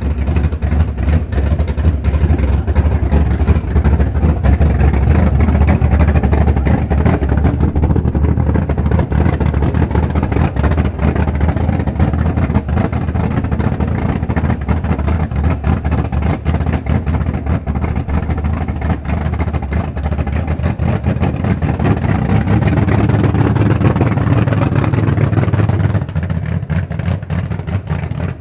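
Drag-racing car's engine running at a loud, steady idle with a deep rumble; it gets a little louder towards the end, then eases off a couple of seconds before it stops.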